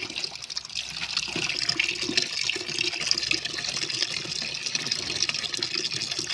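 Grape juice running out of a squeezed plastic straining bag into a plastic bucket: a steady pouring, splashing trickle.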